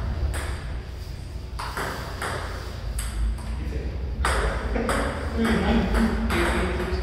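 Table tennis ball clicking off paddles and the table during a rally: a string of sharp, irregular taps.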